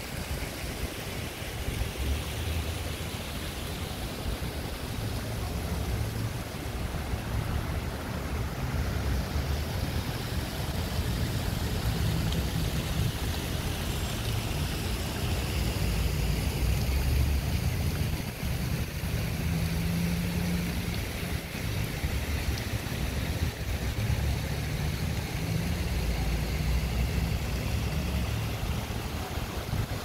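Outdoor water fountain splashing steadily, with an uneven low rumble underneath.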